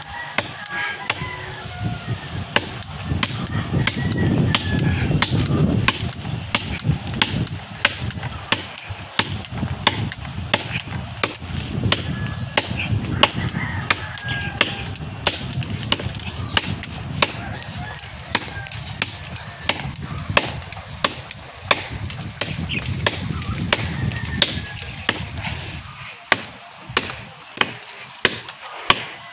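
Repeated sharp chops of a blade into a tree trunk, a steady run of strikes a little more than one a second.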